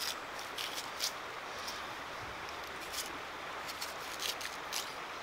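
A knife blade peeling the skin off a raw jicama tuber: short, crisp scraping strokes, about eight of them at irregular intervals, over a steady background hiss.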